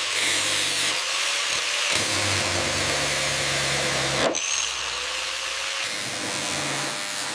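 Steady hissing whir of a power tool running, with a low hum underneath; it cuts off abruptly about four seconds in and resumes.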